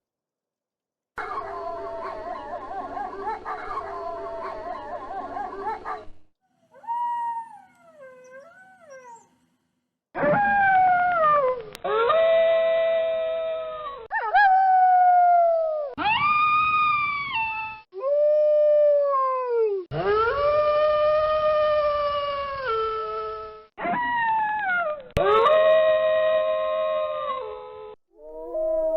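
Wolves howling: first several overlapping howls in a chorus, then fainter wavering howls, then a run of long single howls that each slide down in pitch and then hold, separated by abrupt cuts.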